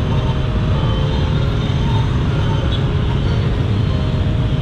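Dense motorbike traffic: many scooter engines running together in a steady drone, recorded from a scooter moving in the jam.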